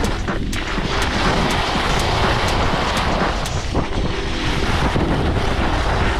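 Wind rushing over the microphone of a camera carried by a skier going downhill at speed, as a loud, steady rumble. Under it, skis scrape and carve on packed, groomed snow.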